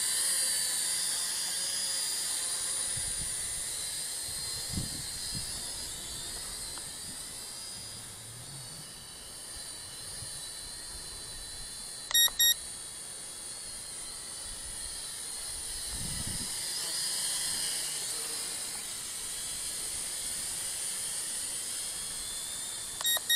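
FQ777 Mantis toy quadcopter's motors and propellers whining at a high pitch, the whine rising and falling as it hovers and moves about. A short double beep sounds about halfway through and again near the end.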